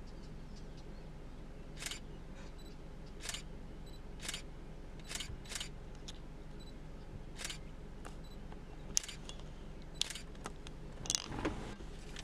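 A vehicle engine idles with a steady low hum under about ten short, sharp clicks at irregular intervals, with a brief cluster of knocks and rustling about eleven seconds in.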